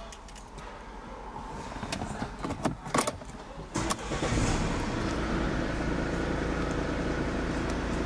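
A Mercedes-Benz car's engine being started from inside the cabin: a few clicks, then about four seconds in the engine catches with a brief flare and settles into a steady idle.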